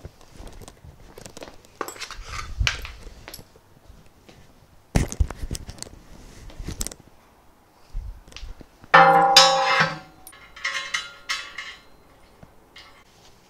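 Metal parts knocking and clattering as they are handled, with one loud metallic clang about nine seconds in that rings for about a second.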